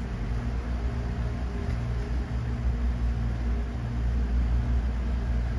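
Steady low machine rumble with a faint hum over it, swelling and easing every second or so.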